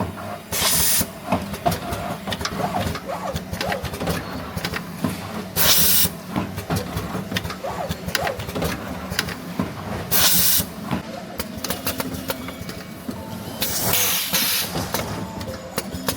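Factory-floor machinery clatter with small knocks and clicks, broken by four short blasts of compressed-air hiss a few seconds apart.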